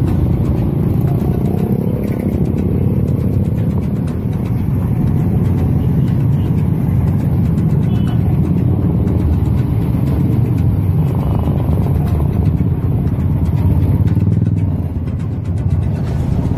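A procession of motorcycles riding past one after another, their engines running with a continuous deep drone.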